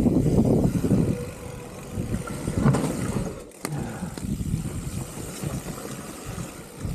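Electric mountain bike riding down a dirt trail: a low rumble and rattle of the tyres and bike, with wind on the microphone. It is loudest in the first second, then quieter, with a brief drop about three and a half seconds in.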